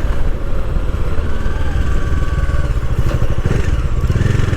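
Motorcycle engine running steadily under way, picked up by a lavalier mic mounted on the rider's helmet, with a heavy low rumble.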